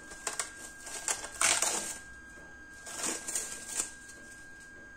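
Plastic cling film crinkling as it is peeled off a glass bowl of dough and crumpled, in a few short rustling bursts, the loudest about a second and a half in.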